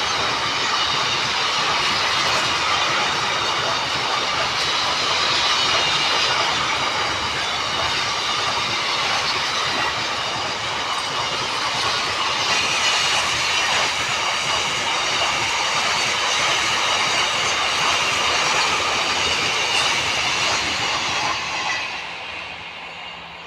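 Long freight train, hauled by a WAG-12B electric locomotive, rolling past on the track: a steady dense rumble and clatter of wagon wheels with a thin high wheel squeal over it, dying away near the end.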